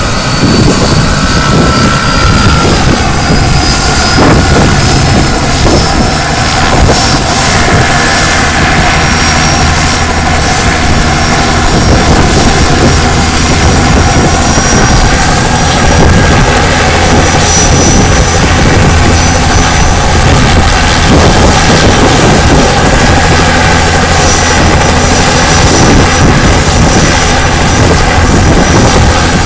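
Bell 206B JetRanger III helicopter running on the ground with its main rotor turning: a loud, steady high turbine whine over the rhythmic noise of the rotor blades.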